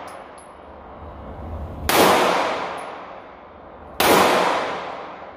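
Two gunshots about two seconds apart, one just before two seconds in and one about four seconds in, each followed by a long echoing decay.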